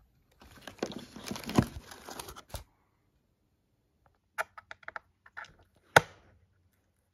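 Clear plastic wrapping crinkling and rustling while a power plug is pushed into a wall socket, ending with a click. After a pause come a few light clicks and one sharp click.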